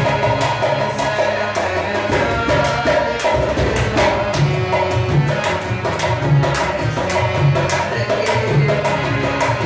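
Live Hindi film song accompaniment: dholak drumming a steady, quick rhythm under a sustained melody line.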